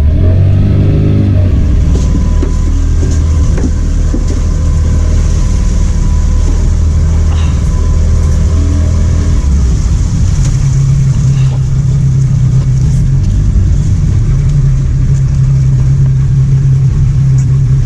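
Engine of a small motorized river-crossing boat running steadily under way. It changes note about ten seconds in and then settles into a steady low drone.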